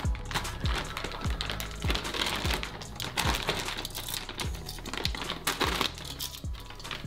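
Clear plastic bag crinkling as hands open it and handle the bundle of cables inside, over background music with a steady beat.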